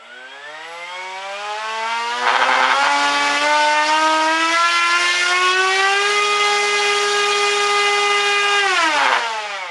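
Turnigy H3126 1300 kV brushless motor spinning a roughly 10x5 propeller on a 3-cell battery, throttled up on a thrust stand. Its whine rises in pitch for about six seconds, holds steady at full throttle, then falls away near the end as it is throttled back. A rough, buzzy patch about two seconds in, and again as it slows, is the out-of-balance prop wobbling before it straightens out.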